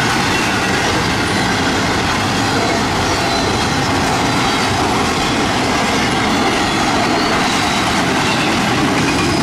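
Intermodal freight cars (empty well cars and trailers on flatcars) rolling past at speed: a steady, loud rolling noise of steel wheels on rail with clatter over the joints.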